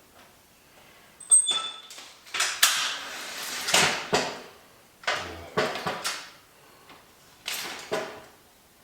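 Clanks, knocks and scrapes of the DeWalt DWX726 miter saw stand's metal parts being handled and fitted during assembly, in several short bursts, with one brief metallic ring about a second and a half in.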